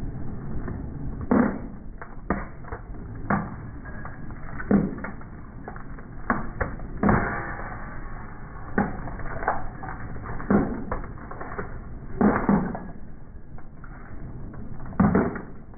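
Steel train wheels rolling slowly along the rail with a low rumble, and a sharp pop or crack every second or two as small plastic packets of coloured powder burst under the wheels.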